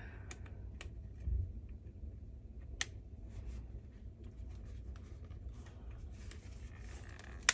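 Plastic parts of a cordless vacuum's roller head being handled and fitted: a dull knock about a second in, a few sharp clicks, and a loud click at the very end, over a low steady rumble.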